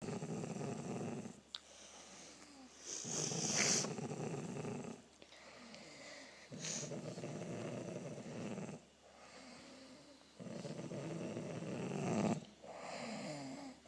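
Sleeping adults snoring: long, low, rasping snores repeat every few seconds, with quieter breaths in between.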